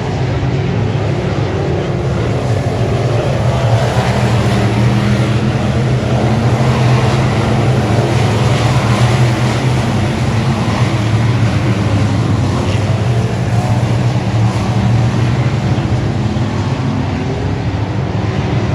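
Dirt-track race car engine running hard and continuously, its pitch holding fairly steady with small rises and falls.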